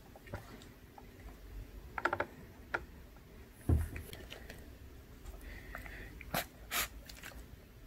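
A plastic food tray with a paper label sleeve handled by hand: scattered crinkles, taps and clicks, with one low thump about halfway through.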